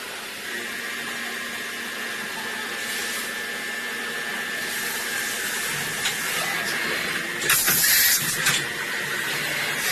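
DMG MORI vertical machining centre machining a small part: a steady high whine over a constant hiss, with a louder burst of hiss about seven and a half seconds in that lasts about a second.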